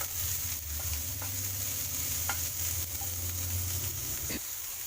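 Capsicum pieces sizzling in hot oil in a pan as they are stir-fried, with a steady hiss and scattered clicks of the spatula against the pan. A low hum underneath cuts off with a click near the end.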